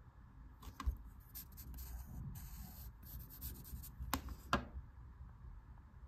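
Pencil scratching and rubbing on paper in short sketching strokes, with a sharp tick about a second in and two more near the middle.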